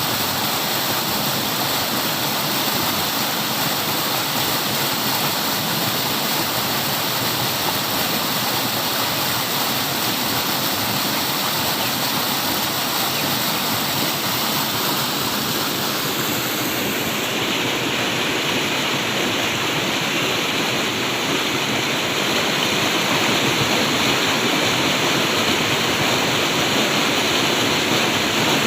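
Steady rush of flowing water, like a stream or small waterfall. About two-thirds of the way through, the rush turns brighter and a little louder.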